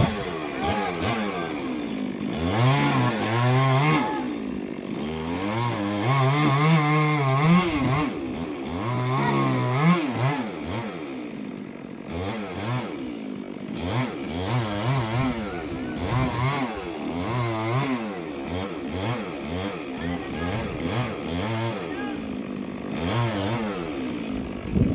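Stihl MS 382 two-stroke chainsaw revving up and down again and again, its pitch rising and falling about once a second.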